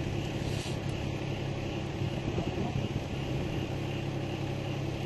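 Utility truck engine running steadily with a low drone, and a faint short hiss about half a second in.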